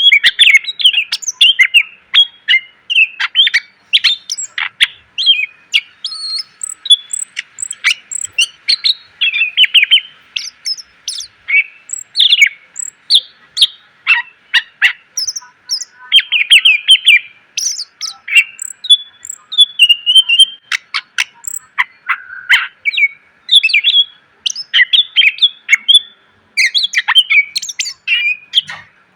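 Green leafbird (cucak ijo) singing a long, rapid song of varied chirps, trills and sharp whistles in quick bursts with only short pauses.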